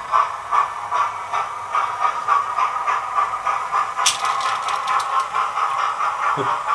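Sound decoder in an OO gauge model of a Gresley P2 steam locomotive playing rhythmic steam chuffs as the model pulls a train of wagons. The chuffs run at about two or three a second and quicken after a couple of seconds. There is a sharp click about four seconds in.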